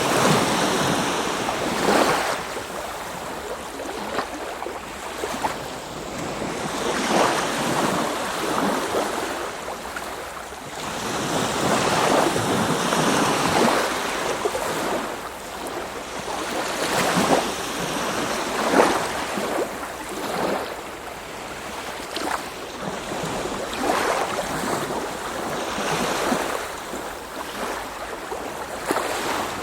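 Small Baltic Sea waves splashing against a rocky shore: a steady wash of water with a fresh splash every second or two, some sharper than others.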